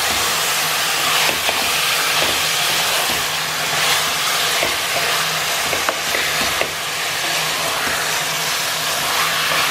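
Raw mutton pieces sizzling in hot oil and masala in a metal pot while a spatula stirs them, with scattered scrapes and taps of the spatula against the pot. A faint steady hum runs underneath.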